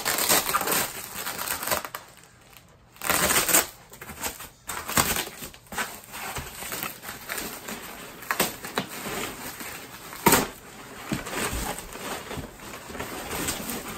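Packing material being crumpled and pulled off an exhaust part by hand: irregular rustling and crinkling with sharper crackles, loudest about three seconds in and in a sharp crackle about ten seconds in.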